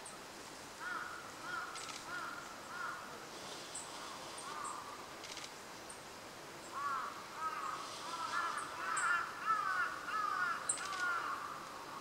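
Wild birds calling in rapid series of short, arched calls, busier and louder in the second half, with a few faint high ticks.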